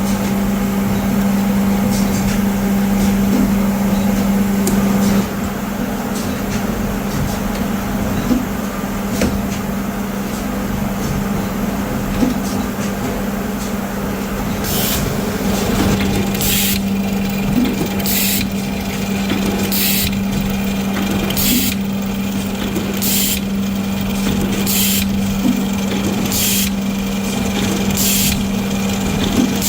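Zipper-making machinery running with a steady hum. From about halfway, short hissing bursts repeat about every second and a half.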